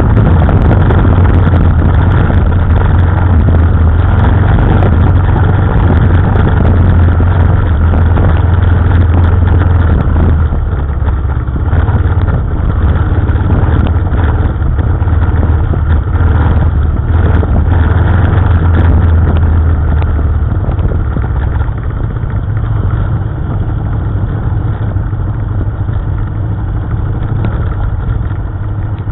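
KTM 990 Adventure's V-twin engine running with the bike under way, a steady low drone. The engine note eases back about ten seconds in and again about two thirds of the way through.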